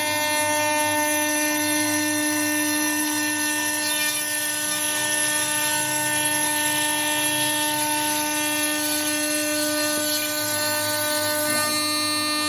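CNC router spindle running with a steady whine while its cutter mills a roughing cut into a wooden board, the chip noise of the cut under the tone.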